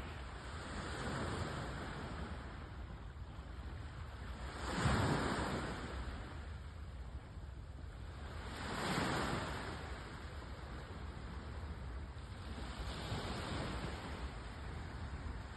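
Caspian Sea waves breaking and washing in, one swell of surf about every four seconds; the wave about five seconds in is the loudest. A steady low rumble runs under the surf.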